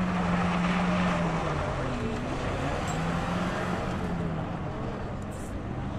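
A car engine held at high revs while drifting on loose dirt, with the hiss and spray of spinning tyres throwing up dirt. The engine note drops about one and a half seconds in and climbs back a second or so later.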